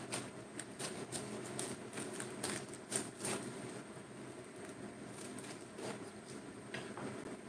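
Kitchen knife cutting through a head of cabbage onto a wooden cutting board: a quick, uneven run of crisp cuts and knocks for the first three seconds or so, then only a few softer ones as the leaves are broken apart by hand.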